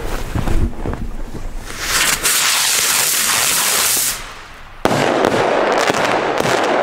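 Fireworks going off: a loud hissing spray of sparks for about two seconds, then after a brief lull a sudden sharp crack followed by dense crackling that slowly fades.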